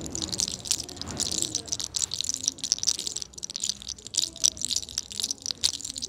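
Fingers rubbing and combing through long hair over the scalp: a continuous crackly rustle of hair made up of many fine, quick clicks.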